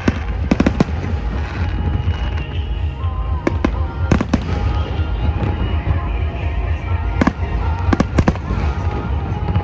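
Fireworks going off: a dozen or so sharp cracks and bangs at irregular intervals, several in quick clusters, over a steady low rumble.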